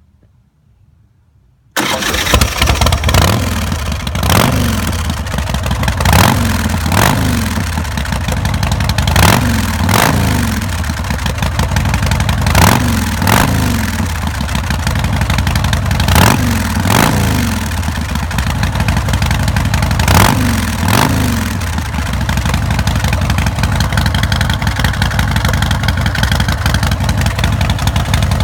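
A 2007 Big Dog K9 chopper's carbureted 117 cubic inch S&S V-twin, breathing through Vance & Hines Big Radius pipes, starts up about two seconds in. It is revved in short throttle blips, often two at a time, each falling back, then settles into a steady idle for the last six seconds or so.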